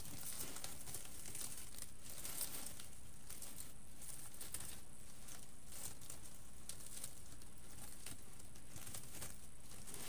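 Metallic deco mesh crinkling and rustling as hands scrunch and fluff it on a wreath frame: a soft, continuous run of small crackles.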